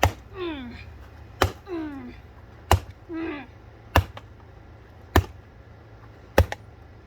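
Hammer blows on a ceiling fan: six sharp strikes at an even pace, about one every 1.2 seconds. A short falling vocal exclamation follows each of the first three blows.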